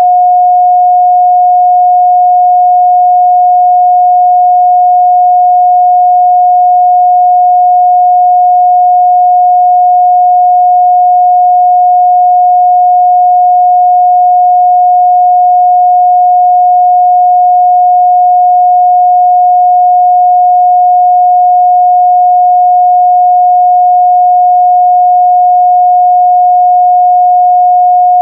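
A steady, pure 721 Hz sine-wave test tone, loud and unchanging in pitch and level, with no overtones.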